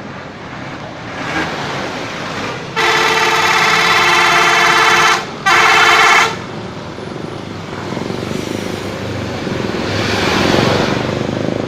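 A bus's telolet air horn sounds two blasts: one held chord of a couple of seconds, then a short second blast right after. Steady traffic noise runs underneath and swells near the end.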